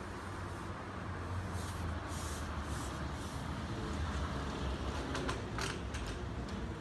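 Trolleybus towing a passenger trailer passing close by on a wet road: a steady low electric running hum with hiss from the tyres. Short sharp hisses and clicks come near the end as the trailer goes by.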